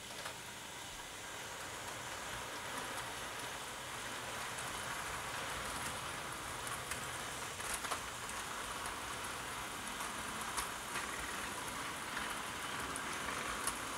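Bachmann 00 gauge Lord Nelson class model locomotive running slowly under power with a rake of Pullman coaches: a steady, fairly quiet whirr of motor and rolling wheels on the track, with a few light clicks.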